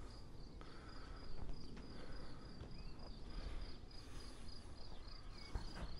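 A cricket chirping in a steady, even, high-pitched rhythm, with a few faint knocks underneath.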